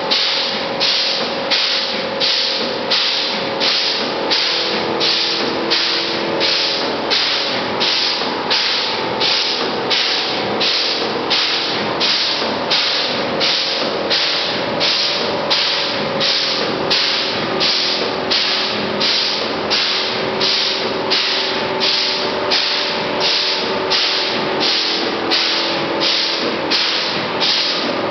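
Background music with a steady beat, about one and a half beats a second, over held tones that change every few seconds.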